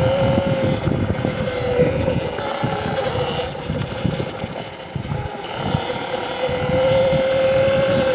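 CZEM Drill One electric dirt bike riding, its motor whining at a steady high pitch over a rough low rumble. The whine weakens in the middle and comes back stronger about six and a half seconds in.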